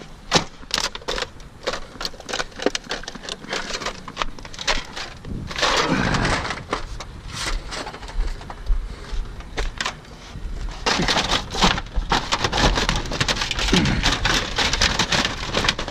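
Siding panels clattering, crackling and scraping as they are handled and pushed into a plastic crate: dense rapid clicks, with louder, fuller stretches around six seconds in and from about eleven seconds on.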